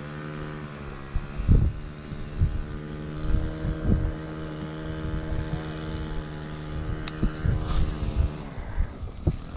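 A small motor hums at one steady pitch after spinning up at the start, then winds down and stops about eight and a half seconds in. Low thumps on the microphone come and go beneath it.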